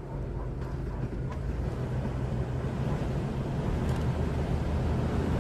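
A vehicle engine running steadily at idle, a low even hum that grows slightly louder.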